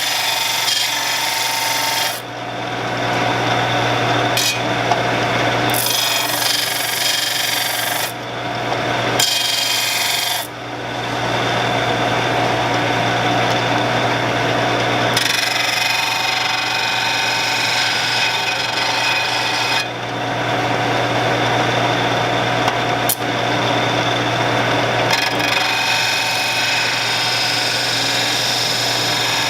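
Shopsmith motor running steadily while a lathe tool blade is ground against the spinning abrasive in a sharpening guide. The gritty grinding hiss breaks off briefly several times as the blade is lifted and set back.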